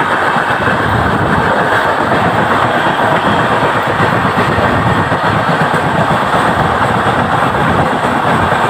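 Steady running noise of two passenger trains side by side at speed: wheels rumbling on the rails and air rushing, heard from the open doorway of an ICF coach beside a rake of LHB coaches.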